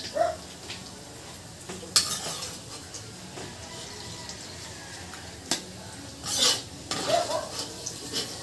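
Metal ladle stirring in a wok of oil, clinking and scraping against the pan a few times, with sharp knocks about two seconds and five and a half seconds in and a longer scrape soon after, over a low steady hiss.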